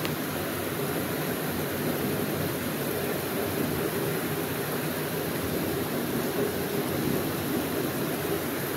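Heavy rain pouring down steadily, an even hiss of downpour.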